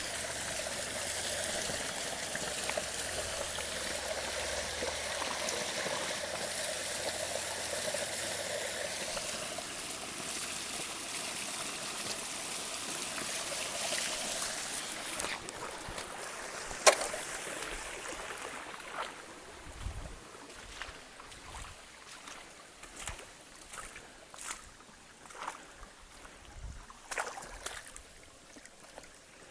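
A small forest stream trickling and gurgling steadily, fading out after about fifteen seconds. After that come a sharp click and then scattered soft knocks and crackles.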